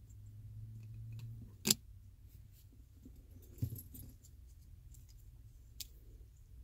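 Small plastic clicks as a key fob is put back together: a coin-cell battery set into its holder and the circuit board dropped into the plastic case. One sharp click comes about a second and a half in, a second one just under four seconds in, and a faint one near the end, with a low hum stopping just before the first.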